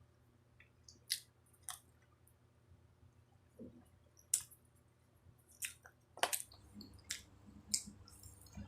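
Close-miked chewing of samosa and jalebi, with about eight sharp, wet mouth smacks at irregular intervals.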